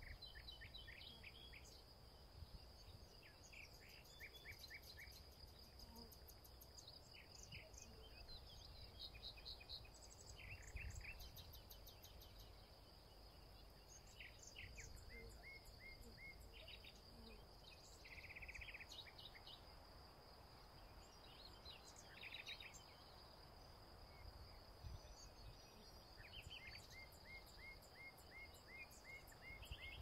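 Faint dusk chorus of insects and birds: a steady, unbroken high insect trill throughout, with short chirps and quick runs of evenly spaced notes from birds and insects coming and going. A low rumble of wind on the microphone lies underneath.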